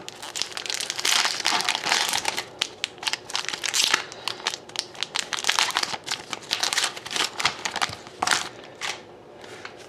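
Foil wrapper of a hockey card pack being torn open and crinkled by hand: a quick, uneven run of crackles that thins out near the end.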